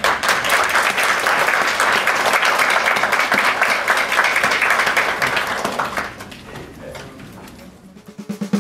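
Audience applauding: dense clapping that thins out and dies away after about six seconds.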